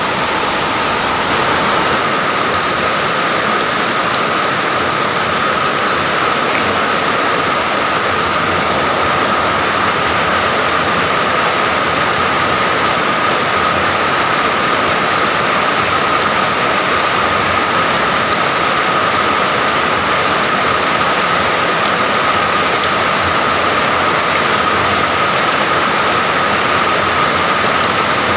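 Steady heavy rain falling, an even hiss with no let-up, with a thin steady high tone running under it.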